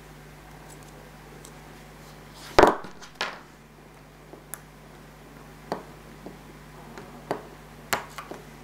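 Scattered small clicks and taps of a hobby knife working a small plastic model-kit part against a cutting mat, cleaning off gate marks. A sharp knock about two and a half seconds in is the loudest, with a smaller one just after.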